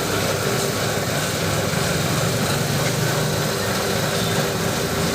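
Lathe running steadily, a continuous machine noise with a steady low hum.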